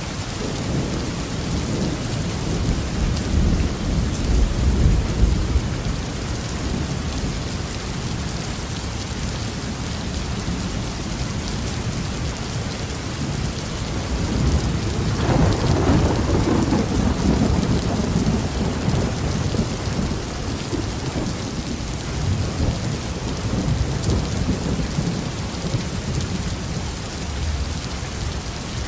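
Heavy rain falling steadily, with two long rolls of thunder, the stronger one about halfway through.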